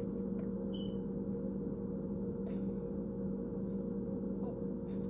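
Steady electric motor hum from a running kitchen appliance, an even drone with a few faint clicks over it.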